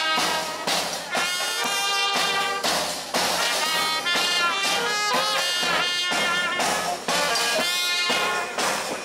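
Background music led by brass instruments, in a jazz style, playing a continuous melody.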